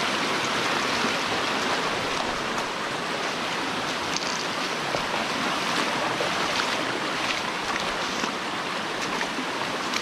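Steady rush of a waterfall and the rocky stream below it, a constant hiss of falling and running water.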